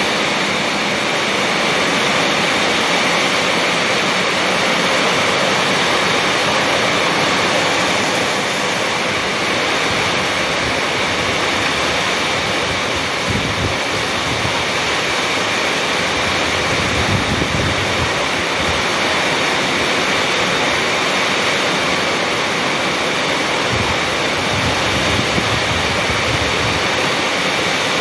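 Heavy rain pouring steadily onto a paved courtyard and potted plants, an even hiss of falling water. Gusts of wind rumble on the microphone a few times midway and near the end.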